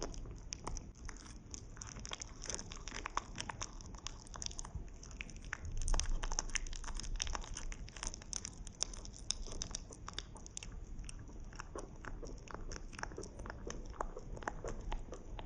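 Pet rabbit chewing food close to the microphone: a fast, continuous run of small clicks and crunches from its teeth, over a steady high hiss.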